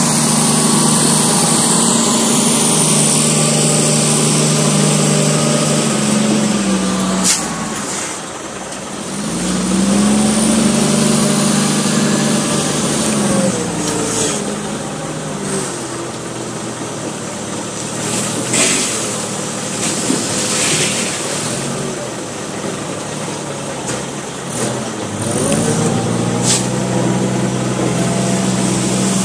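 Heavy diesel engine of a wheel loader running and revving up several times, holding high revs and then dropping back to a lower run between, with a few short, sharp hisses.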